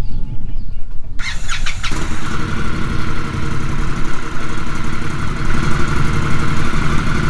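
A 2021 Indian Scout Bobber's liquid-cooled V-twin, on its stock exhaust, is started about a second in. It cranks briefly, catches, and settles into a steady idle.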